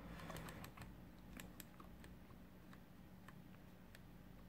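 Near silence with faint, irregular light clicks, most of them in the first two seconds, as the range switch and contacts of an opened AVO 8 multimeter are handled and turned.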